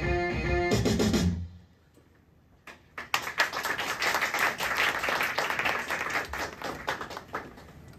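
A song's music stops about a second and a half in, and after a short pause the audience claps, the clapping thinning out near the end.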